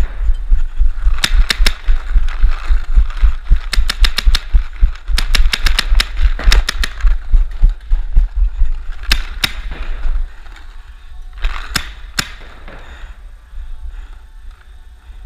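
Paintball markers firing, in rapid strings of shots and single sharp pops, over a steady low thudding from the player's running that stops about ten seconds in.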